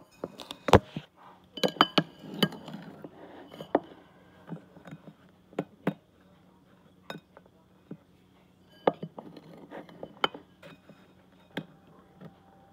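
A spoon clinking and scraping against a bowl while scooping hard-boiled egg yolk onto toast. There is a string of sharp clinks, the loudest about a second in and a quick cluster soon after, then scattered lighter knocks.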